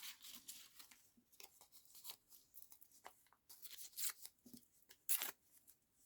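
Paper scraps being handled and rustled, a string of short scratchy crinkles with a louder one about five seconds in.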